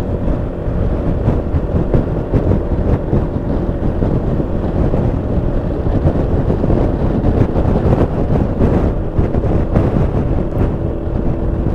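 Yamaha XMAX 300 scooter under way: wind rushing over the microphone, with the scooter's single-cylinder engine running steadily underneath.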